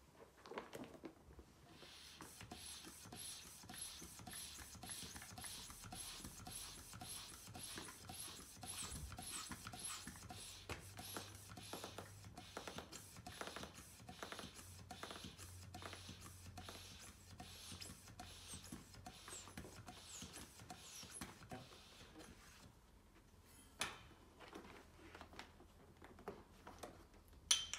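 Hand vacuum pump worked in steady strokes, about two a second, drawing the air out of a stretcher's vacuum head support so that it stiffens around the head. The strokes stop a few seconds before the end, followed by a couple of clicks.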